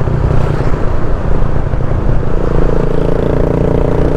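Motorcycle engine running while riding along, with wind rushing over the microphone; about halfway through, a higher steady engine hum joins in.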